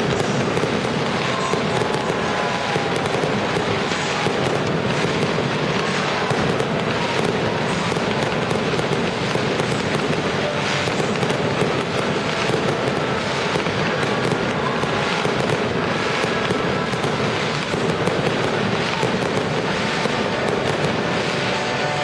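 Fireworks display going off without pause: rapid crackles and sharp pops from firework fountains and small bursting shells over a steady hiss.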